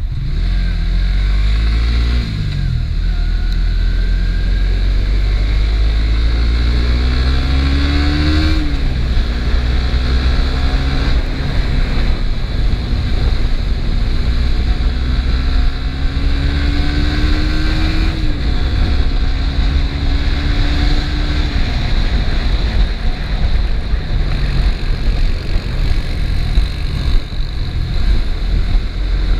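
Suzuki GSX-S150's single-cylinder engine through its stock exhaust, under way on the road: the engine note climbs in pitch under throttle and drops back sharply a few times, then sinks under the noise. A heavy wind rumble on the microphone runs underneath.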